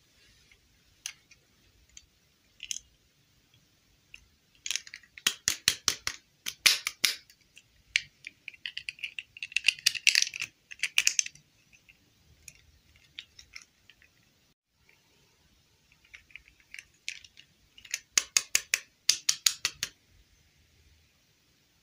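Small hard-plastic dolls and their clip-on plastic dresses being handled and snapped together: three spells of quick clicking and rattling of plastic.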